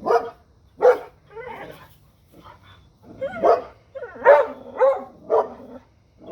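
Dogs barking at a deer: a string of separate sharp barks, several loud ones in quick succession in the second half.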